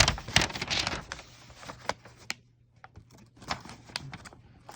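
Irregular clicks and short scrapes of a serrated pocket knife blade being worked against the material in a cut test, not cutting cleanly. The loudest click comes right at the start.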